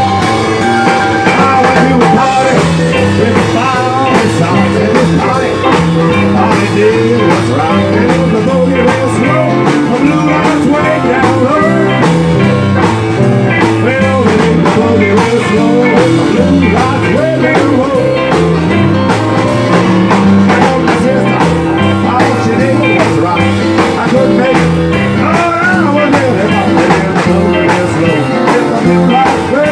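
A band playing a boogie-woogie rhythm-and-blues number, with a rolling, stepping bass line, guitar and drums.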